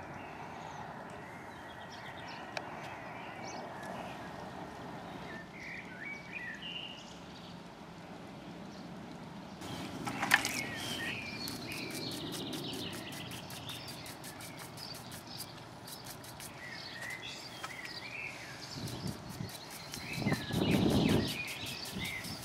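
Outdoor ambience with birds chirping over a steady background hum. In the second half a stiff brush scrubs over the stone paving and mortar joints in quick, rapid strokes, with a brief low rumble near the end.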